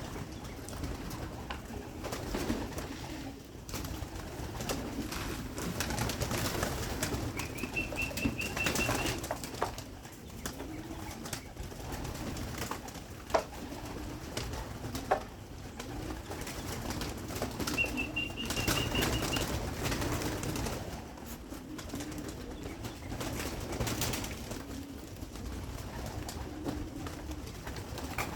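Young pigeons cooing and flapping their wings around feeding time. Two short, steady high whistles sound partway through, and there are a couple of sharp clicks.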